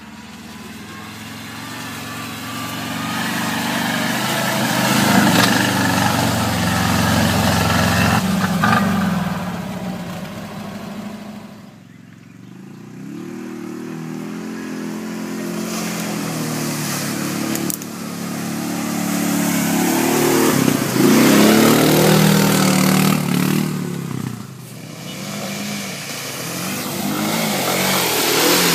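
A LuAZ off-road jeep's engine running under load as it pulls through deep mud, the revs building over the first dozen seconds. After a break about twelve seconds in, a single-cylinder Kawasaki KLX 250 dirt bike's engine revs up and down again and again as it works through mud.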